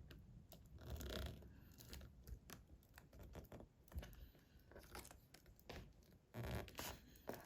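Faint scattered clicks and rustles of hands handling a laptop's 30-pin display cable connector while seating it into the back of a replacement LCD panel, a little louder about a second in and again near the end.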